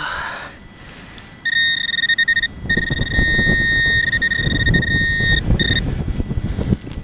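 A metal detector's pinpointer sounds a steady, high electronic tone for about four seconds, breaking off briefly twice, as it is held over a buried metal target in the dug hole. Scraping and rustling of soil and hands run underneath.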